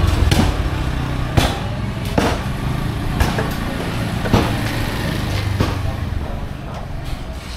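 An engine idling close by, a steady low hum, with about six sharp knocks, roughly one a second, that stop near the end as the hum fades.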